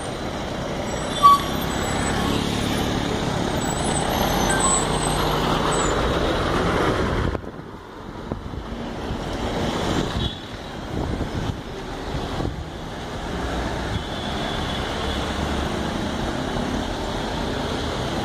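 Road traffic on a mountain hairpin bend: a bus's diesel engine running as it takes the bend, with motorcycles passing. There is a short sharp sound about a second in, and a sudden drop in level a little after seven seconds.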